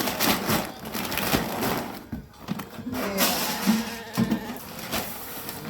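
Irregular rustling and crunching noises, with a few short pitched sounds among them.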